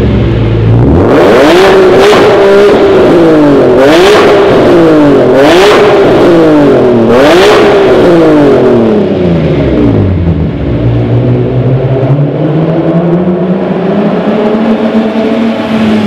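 ESS-supercharged BMW E46 M3's S54 straight-six, breathing through an Agency Power titanium exhaust, is revved hard from idle about five times in quick succession, each blip climbing and dropping back. After about nine seconds it settles to a lower, steadier note that slowly rises in pitch toward the end.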